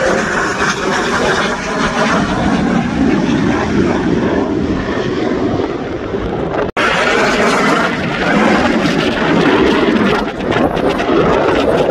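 Loud jet noise from a low-flying F-22 Raptor's twin turbofan engines, a steady, broad rushing sound. It cuts out for an instant a little past the middle and then resumes.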